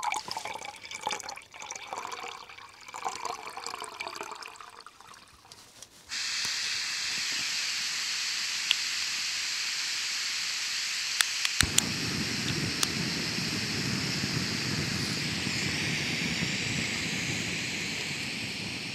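Water poured from a soft bottle into a stove pot. About six seconds in, a gas canister stove starts a steady hiss; a few igniter clicks come near the middle, and the burner catches and burns with a low rushing flame over the hiss.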